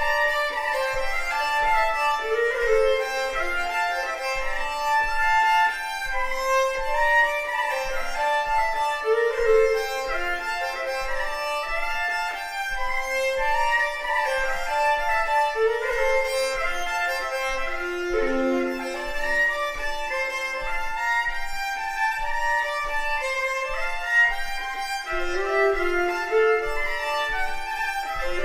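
Solo Hardanger fiddle playing a Norwegian folk tune, the melody bowed with constant double stops over sustained drone strings.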